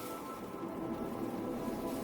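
Background music: a slow ambient track of sustained, held tones.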